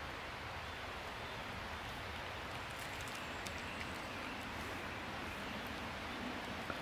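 Steady, even outdoor background rush with no distinct events, only a few faint clicks.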